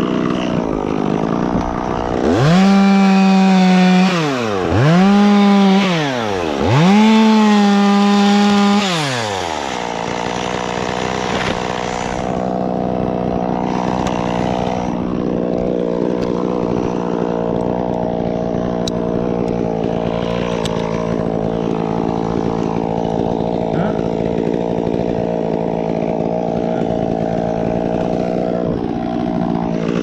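Two-stroke chainsaw idling steadily, revved up three times in quick succession a couple of seconds in, each rev held for a second or two, then dropping back to a steady idle.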